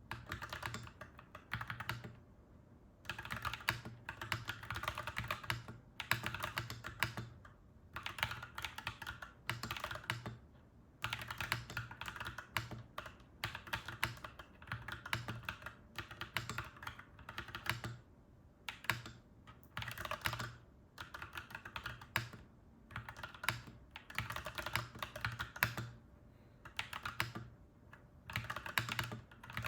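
Clacky mechanical keyboard being typed on steadily, in quick runs of keystrokes a second or two long with short pauses between them.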